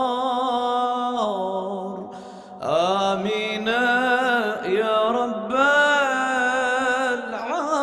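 Sustained melodic vocal chanting in long held phrases. It fades about two seconds in, then a new phrase swells in with a rising slide and carries on.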